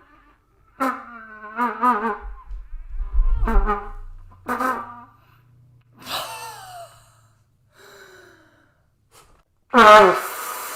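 Unmusical trumpet blasts: about six short, squawking honks with wobbling pitch, the last and loudest sliding down in pitch near the end, a badly played trumpet that is "not right at all".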